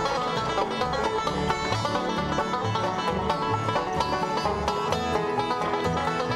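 Background music: a plucked-string tune over a steady, repeating bass line.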